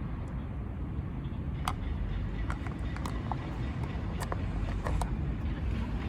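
Steady low rumble of outdoor background noise, like distant traffic, with scattered faint clicks and ticks.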